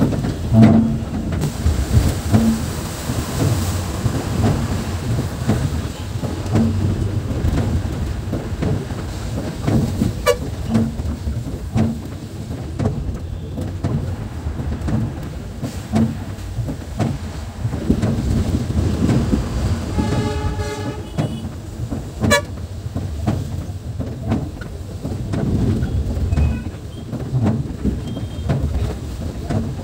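Bus engine and road noise: a steady low rumble with irregular knocks and rattles. A vehicle horn sounds once for about a second, roughly two-thirds of the way through.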